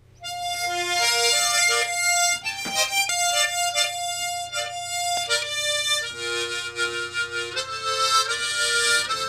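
Tremolo harmonica playing a sustained melody, single notes at first, then two-note harmony from about six seconds in.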